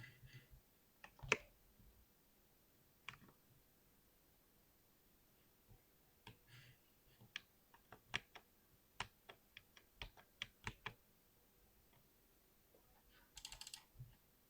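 Typing on a computer keyboard: scattered single keystrokes with a heavier knock about a second in, then a run of separate key presses at a few per second through the middle, and a quick flurry of keys near the end.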